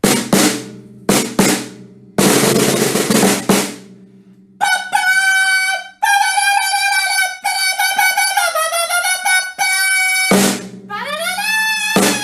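Music track: a few sharp drum hits and a snare drum roll, followed by a long, high pitched melodic line that slides downward partway through.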